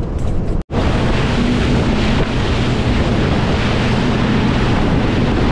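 A boat running at speed over calm sea: wind buffeting the microphone over the rush of the wake, with a steady low engine hum underneath. It starts abruptly just under a second in.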